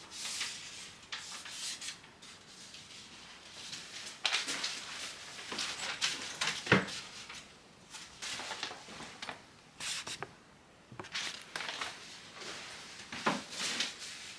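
Intermittent scraping and rustling handling noises, with a single sharp knock about seven seconds in: flat-pack wardrobe panels and parts being moved and handled.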